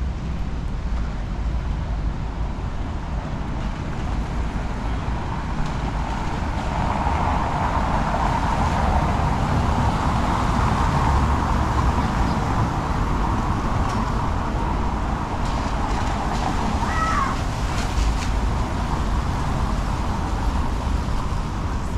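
Urban traffic on a wet road: the tyre hiss of passing cars swells up for several seconds a third of the way through, over a steady low rumble. A short high chirp sounds about three-quarters of the way through.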